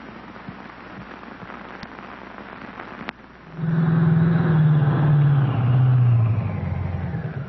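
Cartoon sound effect of a car engine running with a rapid pulsing beat, its pitch sagging slowly downward. It starts about three and a half seconds in, after faint hiss and a couple of clicks from an old film soundtrack.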